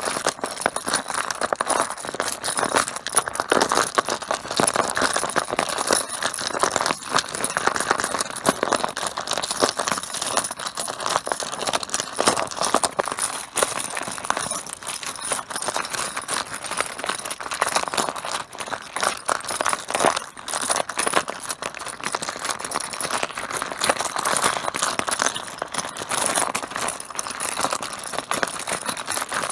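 Mahjong tiles clattering against one another in a dense, continuous stream of clicks and clacks.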